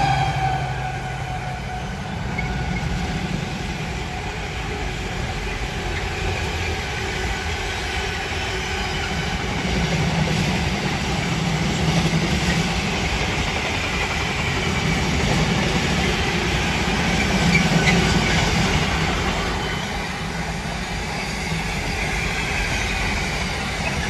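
Intermodal container train passing, hauled by a Freightliner Class 70 diesel locomotive. The locomotive's engine note falls away in the first second as it goes by, then the container wagons rumble and clatter past steadily, swelling in loudness a couple of times.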